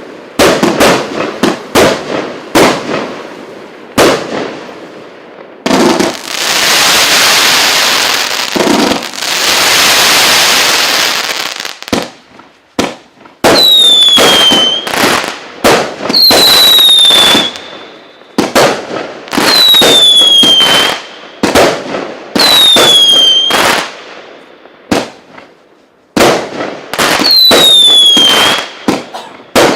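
A multi-shot fireworks battery firing. First a quick run of sharp bangs, then a few seconds of dense crackling hiss. After that comes a series of about six loud shots, each carrying a short falling whistle, roughly every three seconds.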